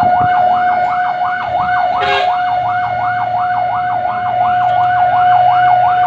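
Fire truck's electronic siren sounding a fast rising-and-falling wail, about three sweeps a second, over a steady tone, with a brief noisy burst about two seconds in and the truck's engine humming underneath.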